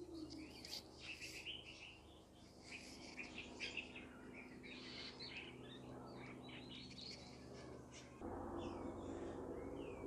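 Faint chirping and short whistled calls of several small birds, overlapping throughout. A steady low rumble comes in suddenly near the end.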